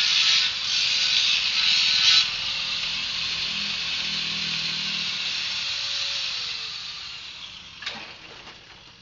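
Power tool working on metal with a hissing grind that eases after about two seconds. It then runs steadily, is switched off and winds down, its pitch falling as it fades, with a single knock near the end.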